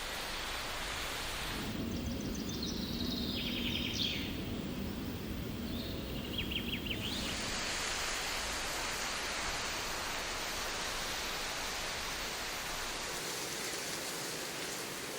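Forest ambience: a dense, steady rustling hiss of foliage, cut about two seconds in to a quieter stretch with a few short, rapid chirping calls from small animals, then back to the dense foliage hiss about seven seconds in.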